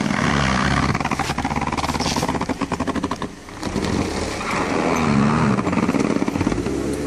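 Toyota Venza AWD engine revving under load as the car drives over uneven packed snow, its studded winter tyres crunching and scrabbling for grip. The sound drops briefly about three seconds in, then picks up again.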